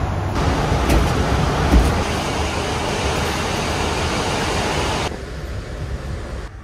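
Steady rumbling road noise of a passing vehicle, with a deep low rumble, dropping off sharply about five seconds in.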